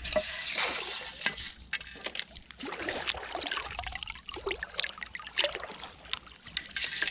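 Creek water trickling and sloshing through a sifting screen full of gravel, with many small pebbles clicking against one another.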